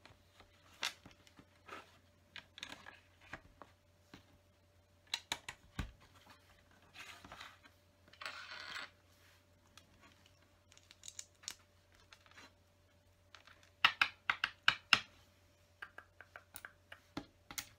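LEGO bricks being handled and pressed together on a table: scattered small clicks and clacks, a brief rustle of pieces being picked through about eight seconds in, and a quick run of sharper clicks around fourteen seconds in.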